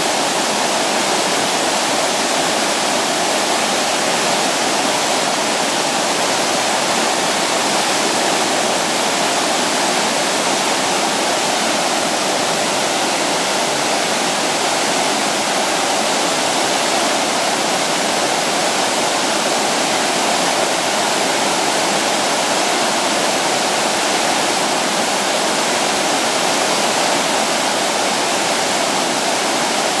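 A shallow river rushing and tumbling over rocks: loud, steady, unbroken water noise.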